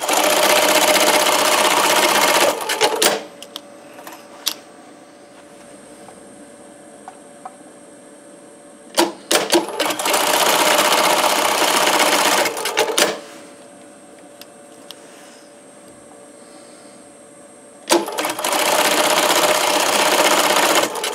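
Industrial bar-tacking sewing machine stitching three bar tacks: three bursts of rapid machine stitching, each about three seconds long, at the start, about nine seconds in and about eighteen seconds in. Each burst opens and closes with sharp clicks.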